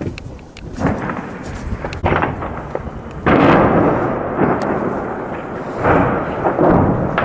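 Heavy weapons fire and explosions: a series of about five booms, each trailing off slowly, the loudest about three seconds in. A few sharp gunshot cracks come in between.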